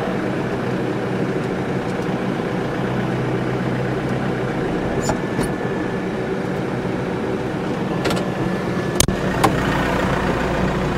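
New Holland tractor's diesel engine running steadily as the tractor drives through snow with a round bale on the front loader. A few sharp knocks come through, the loudest about nine seconds in.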